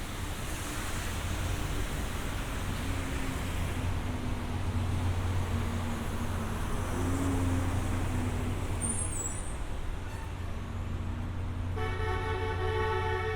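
City street traffic: a steady low hum and rushing noise of passing vehicles. Near the end a vehicle horn honks, one held chord lasting about a second and a half.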